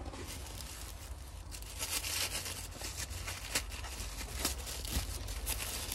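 Paper wrapping rustling and crinkling as it is worked off a potted cactus by hand, with sharp crackles. It is quieter at first and gets busier from about two seconds in.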